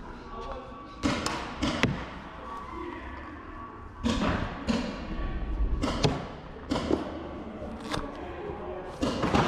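Paintball markers firing and paintballs hitting, heard as an irregular string of about ten sharp pops and thuds.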